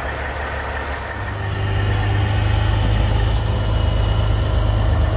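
Heavy Caterpillar diesel truck engine running, getting louder about a second in and then holding steady while the truck's knuckle-boom crane is worked.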